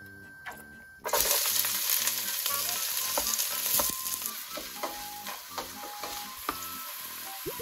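Chopped green onions frying in hot oil in an aluminium pot, the sizzle starting suddenly and loud about a second in and carrying on steadily, with the small scrapes and clicks of a wooden spoon stirring them against the pot.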